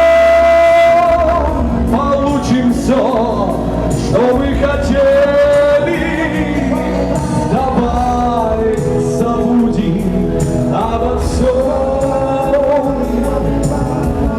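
A singer performs a Russian pop song with instrumental accompaniment. A long held note ends about a second in, and the next sung lines follow.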